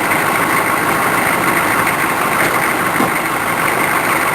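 A motor running steadily, loud enough to be called a racket.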